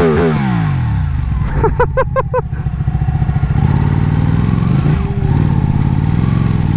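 Ducati Panigale's V-twin engine with revs falling as the bike slows, then running steadily at low revs. About two seconds in there is a quick run of about five short chirps.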